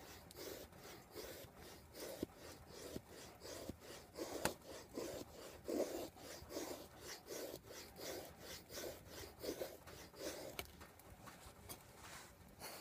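A Survive Knives GSO 6 blade shaving a wood stick into a feather stick: repeated scraping strokes down the wood, about two a second.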